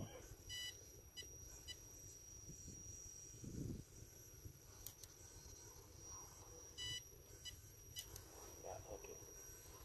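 Near silence: faint outdoor background with a steady high-pitched whine and a couple of short chirps, one about half a second in and one near seven seconds.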